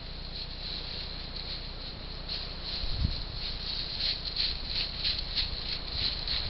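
Wild boar moving about on the forest floor, with one low thud about three seconds in. Behind it runs a high, steady chirring of night insects that pulses more strongly through the second half.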